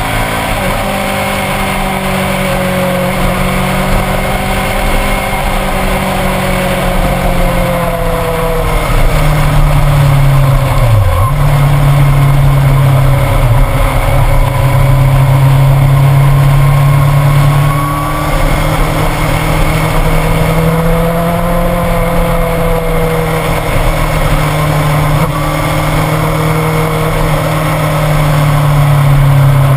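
Motorcycle engine running at road speed under wind rush on a bike-mounted camera. The engine note rises and falls gently and dips sharply twice about a third of the way in, then runs louder.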